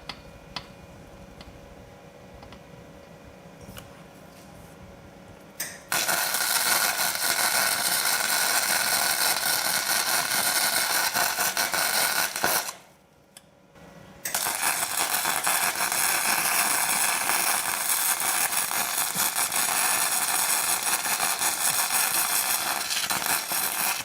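Electric arc welding: the arc crackles in an even, loud run starting about a quarter of the way in, stops briefly, then runs again until the end. A few faint clicks come before it, while the bolt is being set up to be welded back on to break a seized part loose.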